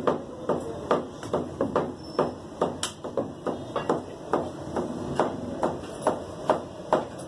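A butcher's cleaver chopping mutton on a round wooden chopping block, in quick, regular strokes of about two to three a second, each a sharp knock into the wood.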